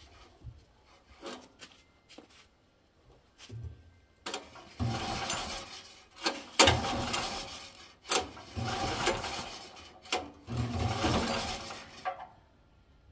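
A few faint clicks, then the recoil pull-starter of a Stanley SG 7500 petrol generator pulled about four times, each pull a rasping whir of the engine cranking over for a second or so. The engine does not catch.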